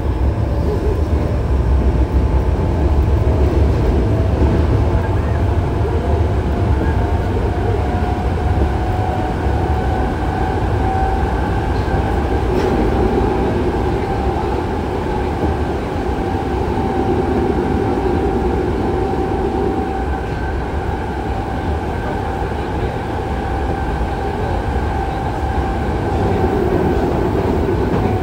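Running sound of a Yokohama Municipal Subway 3000A train with Mitsubishi GTO-VVVF traction equipment, heard on board: a steady rumble of wheels on rail under a thin motor whine. The whine rises slowly over the first dozen seconds, then holds steady.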